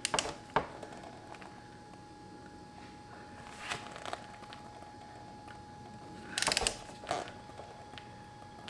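Ratcheting torque wrench on a long extension tightening a motorcycle oil filter: short bursts of ratchet clicks, three times, with quiet pauses between the strokes.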